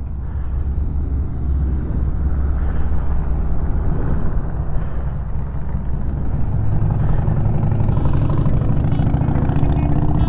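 A steady low rumble, then from about six seconds in a vehicle engine on the road below grows louder and rises slowly in pitch as it accelerates.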